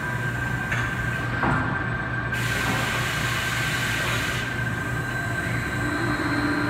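Machinery noise in a robotic drilling cell: a steady low hum and a constant high whine. About two seconds in, a hissing rush starts and lasts about two seconds.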